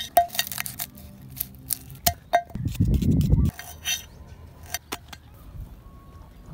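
Kitchen knife slicing red onion and then garlic on a wooden cutting board, a string of sharp taps and knocks as the blade meets the wood. About two and a half seconds in, a low rumble lasts about a second.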